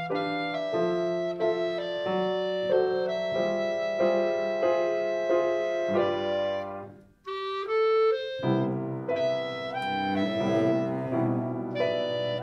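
A trio of Steinway grand piano, clarinet and cello playing a mellow, jazz-inspired piece. About seven seconds in the music stops briefly. A few single notes then lead the ensemble back in.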